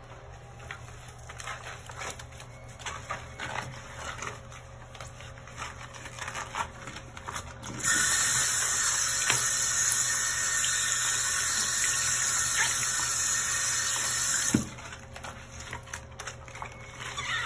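A bathroom sink faucet runs into the basin over a wet cloth for about seven seconds, starting around eight seconds in and cutting off abruptly. Before and after it, quiet rubbing and handling sounds come from a rubber-gloved hand wiping the sink with the wet cloth.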